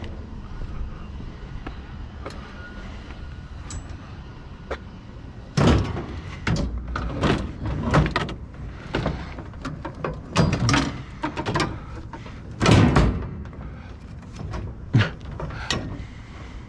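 A run of loud clanks, knocks and rattles of metal shelving being pulled about and handled, starting about five seconds in and going on for some ten seconds.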